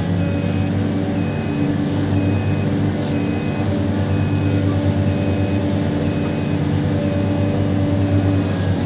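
Large diesel engine of heavy earthmoving machinery running steadily, with a backup alarm beeping about once a second, each beep a short high tone.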